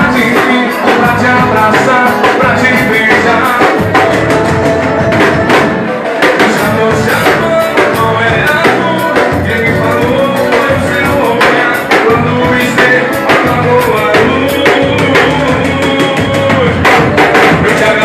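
A live band playing loud music, with a drum kit keeping a steady beat under the other instruments.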